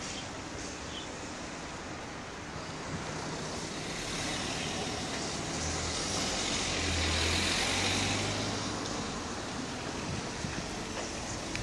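Street traffic noise, with a motor vehicle passing that grows louder about halfway through and then fades.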